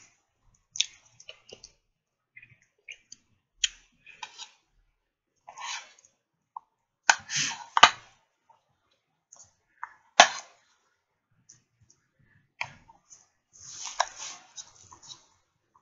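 A person chewing pork ribs close to the microphone: irregular wet mouth clicks and lip smacks, with a few louder smacks about halfway through.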